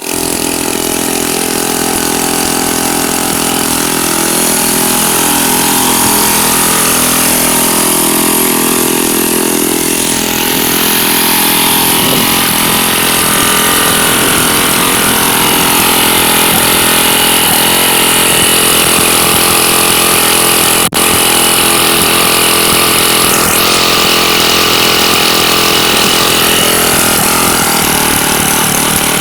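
Small engine of a souped-up lawnmower running loudly and steadily, with one very brief drop in the sound about two-thirds of the way through.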